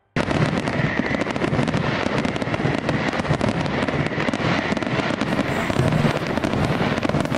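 Fireworks display: a dense, continuous crackling and popping that starts abruptly right at the outset.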